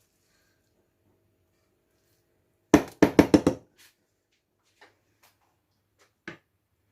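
A serving spoon knocking against cookware: a quick run of about six sharp knocks halfway through, then a few faint clicks and one more knock near the end.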